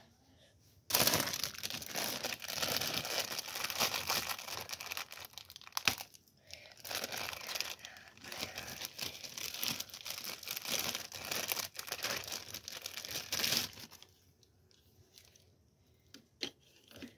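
Plastic packaging crinkling and tearing as it is handled and pulled open, in two long stretches broken by a short pause about six seconds in. A few light clicks near the end.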